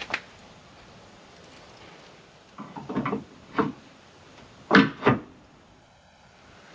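Clunks and knocks of a Bronco Raptor side step being fitted onto the rock rail, its tabs sliding into the slots. There is a knock right at the start, a cluster of knocks around three seconds in, and the two loudest clunks close together about five seconds in.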